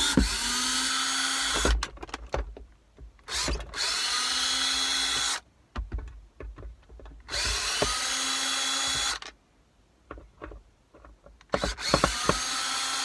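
DeWalt 20V cordless drill backing out the four screws from the plastic underside of an armrest lid. It runs four times, each a steady whine of about two seconds, with clicks and taps in the pauses between runs.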